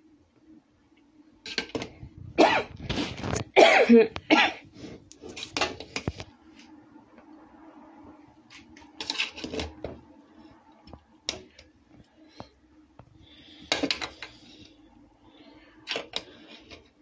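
Metal spatula scraping and knocking against an aluminium cooking pot as biryani rice is turned over: a run of short, sharp scrapes, heaviest about two to four seconds in, then single strokes every few seconds, over a faint steady hum.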